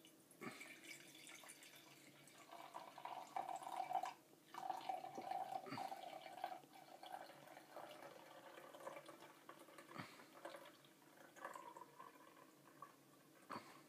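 Liquid yeast being poured in a thin stream into a glass jar, a faint trickling and splashing as the jar fills, with a few soft clicks.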